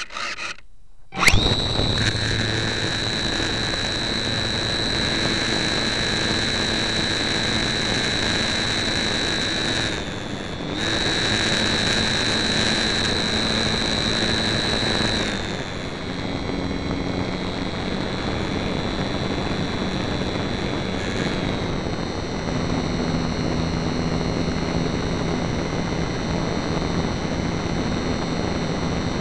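Electric motor and propeller of a HobbyZone Super Cub RC airplane, heard from a camera riding on the plane. The motor starts suddenly about a second in and runs with a steady high whine. It drops out briefly about ten seconds in, then settles to a slightly lower pitch about halfway through and holds steady as the plane flies.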